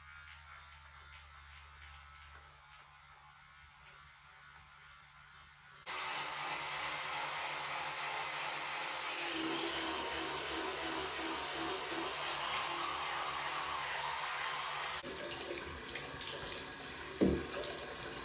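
Quiet room hum, then about six seconds in a tap is turned on and water runs steadily into a sink for about nine seconds before stopping suddenly; a sharp knock follows near the end.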